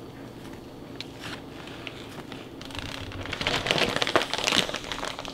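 A plastic zip-top bag rustling and crinkling, growing busier about three seconds in, with a few light clicks.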